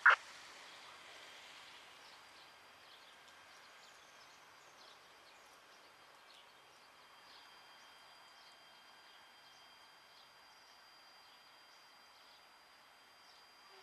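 A sharp click at the very start, then faint outdoor ambience: small birds chirping on and off over a thin, steady high-pitched tone.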